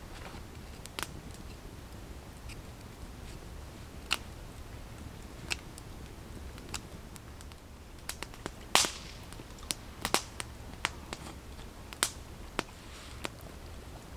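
Wood campfire crackling: sharp, irregular pops and snaps over a steady low background, with a louder, longer crackle about nine seconds in.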